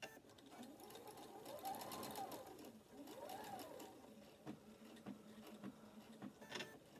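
Sewing machine stitching a seam, its needle ticking rapidly. The motor whine rises and falls twice, about two and three and a half seconds in, as the stitching speeds up and slows.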